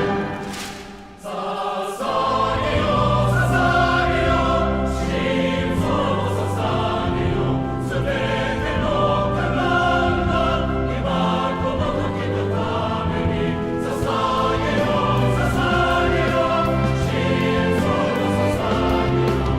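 Background music with choral singing over a steady bass. It dips briefly at the start and comes back in about a second in.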